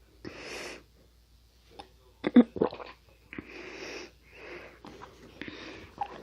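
Close-miked chewing of Nunettine flaky puff pastry: crackly bursts of crunching, with a quick cluster of sharp cracks about two seconds in.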